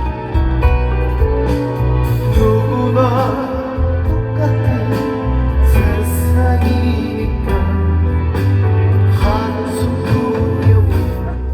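Live band music, loud and steady, with a strong bass line and drums, and a voice singing at times over it.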